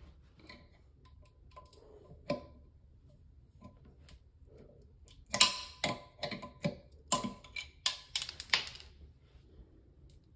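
A 5/8 wrench clicking against a plastic toilet-seat mounting nut as it is turned in short strokes: a quick run of sharp clicks starting about halfway through, as the nut is tightened until its breakaway piece snaps off.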